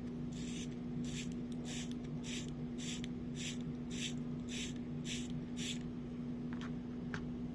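About ten short, evenly spaced hisses of air, a little under two a second, stopping about two seconds before the end. A steady low hum runs underneath.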